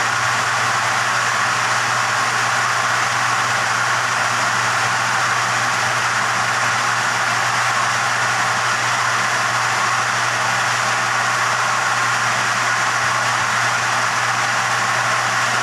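Steady machine running noise: a constant low hum under an even hiss, unchanging throughout.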